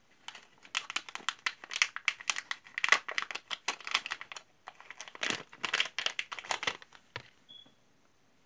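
Thin plastic packaging pouch crinkling as it is handled and a mascara tube is taken out of it: quick, dense rustles with a short lull about halfway, stopping about a second before the end.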